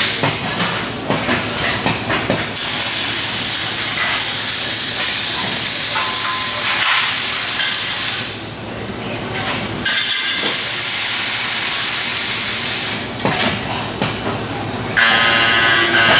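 Robotic welding cell at work: two long stretches of loud hissing, several seconds each, with shorter crackling patches and clicks between them. Near the end a motor whines briefly.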